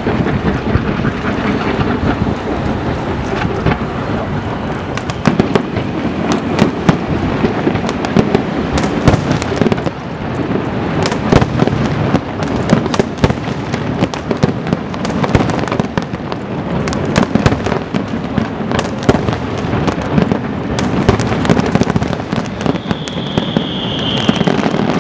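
Aerial fireworks show: a dense, continuous barrage of shell bursts, with many sharp bangs over a rapid crackle. A brief high whistle sounds near the end.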